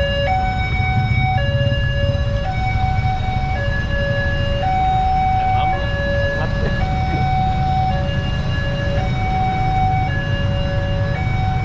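Railway level-crossing warning alarm sounding an electronic two-tone signal, switching between a low and a higher pitch about every second, over the low rumble of idling vehicles waiting at the closed crossing.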